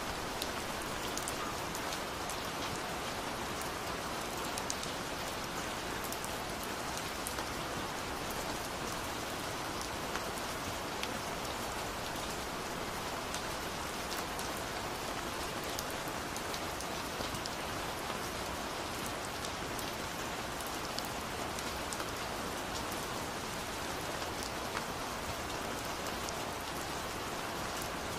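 Steady rain falling on a surface, an even hiss scattered with sharp single drop ticks.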